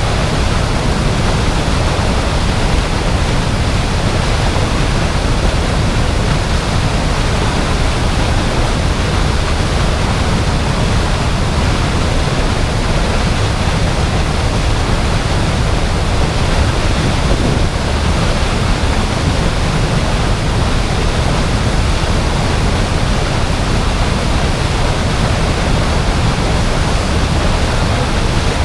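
Waterfall rushing with a loud, steady roar of falling water that does not change.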